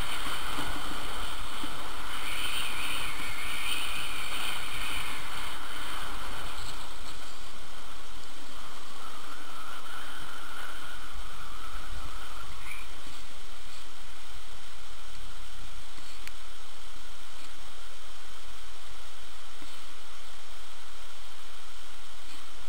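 Steady rushing noise of skiing downhill on snow: wind over the moving microphone mixed with skis sliding and scraping on the groomed snow.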